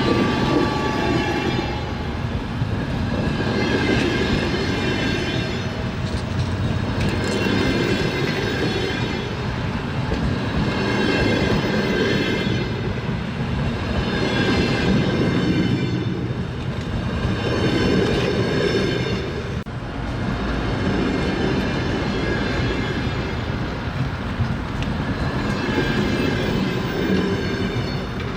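Train wheels clattering on the rails in a continuous run, with a high ringing that swells and fades every three to four seconds.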